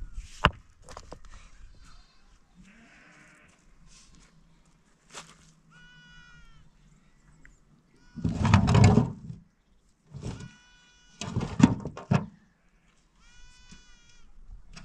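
Rough stones knocking and grating as they are lifted and set into a dry-stone wall, with a few sharp knocks near the start and two loud, longer grinding bursts a little past the middle. A young animal bleats high and wavering three times.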